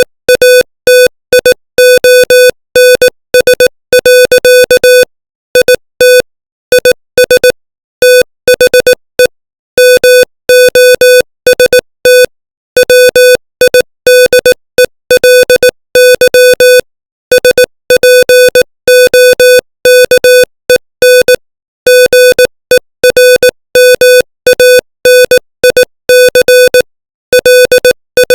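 Morse code at 18 words per minute: a single loud, steady beep keyed on and off into short dots and longer dashes, with short gaps between letters and longer gaps between words, spelling out English text.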